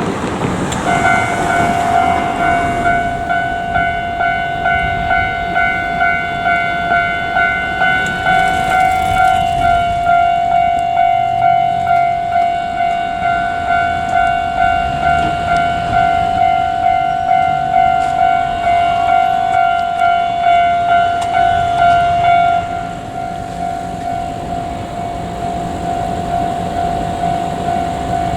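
Japanese railway level crossing warning alarm ringing, a steady pitched ding repeating about twice a second, with a low rumble beneath. About 22 seconds in the ringing drops away and a fainter steady tone carries on.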